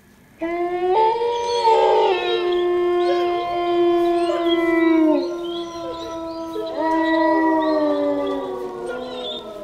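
Dog howling in long drawn-out howls. The first begins about half a second in and drops in pitch around five seconds, and a second rises near seven seconds and sinks away at the end.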